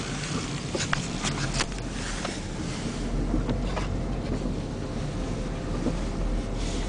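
A snow shovel scraping a few times in the first couple of seconds, over a steady low outdoor rumble.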